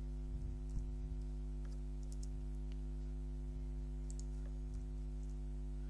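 A few faint, scattered computer keyboard and mouse clicks over a steady low electrical hum.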